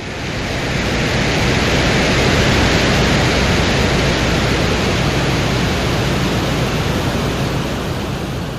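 Steady, even rushing hiss with no tone in it: a sonified space recording presented as the sound of the planet Venus. It swells a little and eases slightly near the end.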